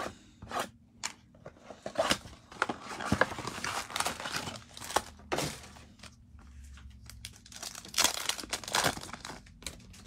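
Plastic wrap and foil card packs crinkling and tearing as a Mosaic football blaster box is unwrapped and its packs ripped open, in irregular rustles and sharp rips.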